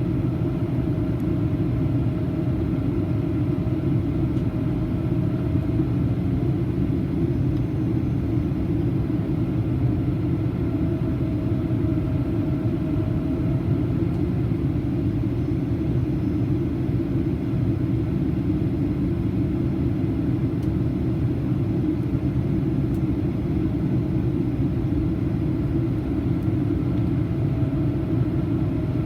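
Cabin noise inside a Boeing 737-800 in flight: a loud, steady rumble of airflow and CFM56 engines, with a faint whining tone that comes and goes.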